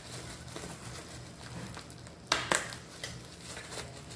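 Bubble wrap crinkling as a hand handles a wrapped wooden plate, with two sharp clicks close together about two and a half seconds in.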